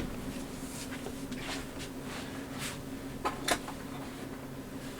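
A few brief knocks and rustles from items being handled, over a steady low hum.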